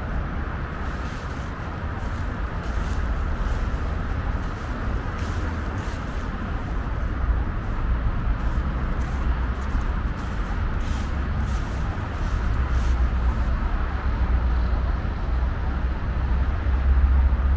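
Steady city road traffic, cars passing, with a deep low rumble that swells near the end.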